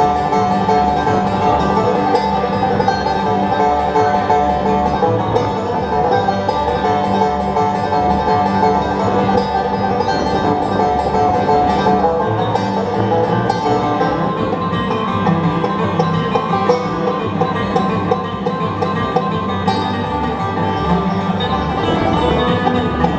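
Live bluegrass band playing an instrumental break without vocals: fast banjo picking over guitar, with a steady low bass pulse keeping time.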